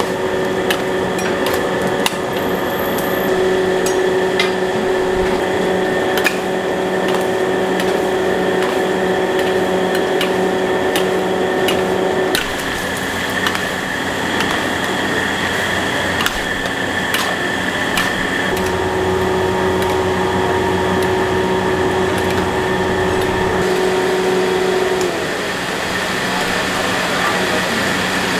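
Steady mechanical hum with a pitched tone that drops out about twelve seconds in and comes back around eighteen seconds, stopping again near twenty-five seconds. Frequent sharp clicks and knocks run over it, the background of a street-food cooking stall.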